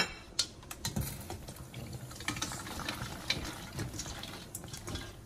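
Washed dried sorrel tipped from a stainless-steel colander into a pot of boiling water: a sharp metal knock at the start, then splashing and bubbling water with a few light metal clicks as the colander is emptied.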